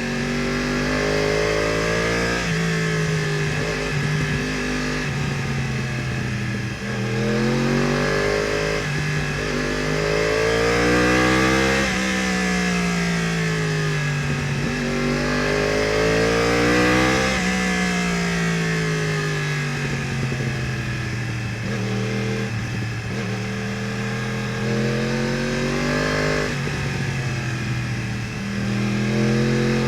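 2015 Yamaha R1's crossplane inline-four engine, breathing through an Akrapovič full exhaust, pulling hard and backing off over and over. The revs climb, drop, and climb again as it accelerates and slows for bends.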